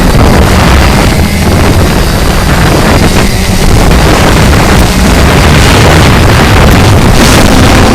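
Strong blizzard wind buffeting the microphone, loud and continuous. A faint steady hum underneath comes from the CX-20 quadcopter's motors.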